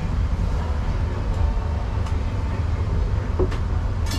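Small restaurant kitchen background: a steady low rumble, with a few light clicks and clinks of utensils or dishes, the sharpest near the end.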